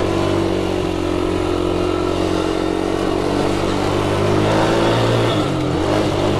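Engine of a small Polaris 110 ATV running steadily under throttle while riding. It holds an even pitch and eases off slightly about five seconds in.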